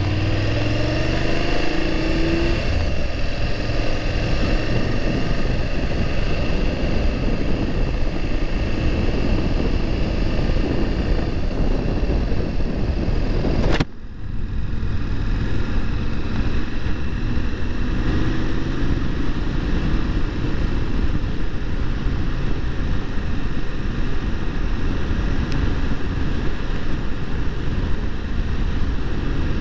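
BMW F750 GS parallel-twin engine running at road speed, heard over heavy wind rush on the microphone. A brief dropout comes about halfway through.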